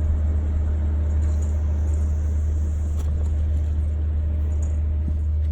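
A steady low rumble at an even level, with a few faint ticks about three seconds in.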